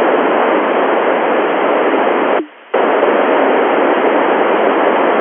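Loud FM radio static hiss from an Icom IC-9700 receiving the Tevel 7 satellite's FM transponder downlink. It stops abruptly for a moment about two and a half seconds in, then comes back.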